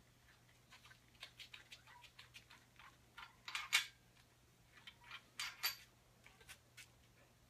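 Light metal clicks and clinks of main bearing caps and bolts being handled on a bare Ford 302 V8 cast-iron block, with louder clanks about halfway through and again about two seconds later.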